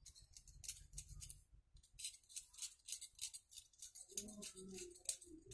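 Small pliers making many quick, faint metallic clicks and snips as they work the wire leads of a replacement electrolytic capacitor.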